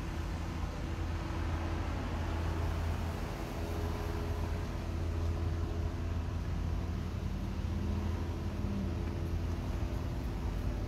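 A motor running steadily: a low hum with a few held tones above it, and a slightly higher tone joining for about two seconds near the end.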